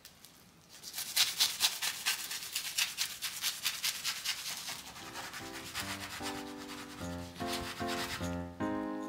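Kitchen knife sawing through a plastic-wrapped egg sandwich, the blade rasping on the cling film and bread in rapid strokes that start about a second in and stop shortly before the end. Background music with plucked, pitched notes comes in about halfway and grows louder.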